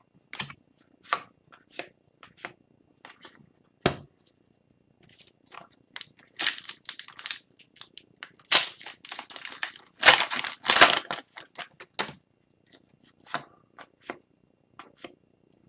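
A hockey card pack's wrapper being torn open and crinkled, among light rustles and clicks of cards being handled. The densest tearing and crinkling comes from about six to eleven seconds in.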